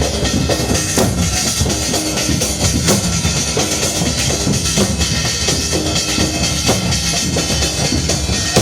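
Loud drum-led music for a Gair dance: continuous drumming with frequent sharp strikes.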